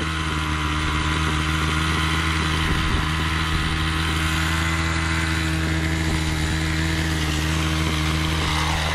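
A small engine running steadily at an even, unchanging pitch.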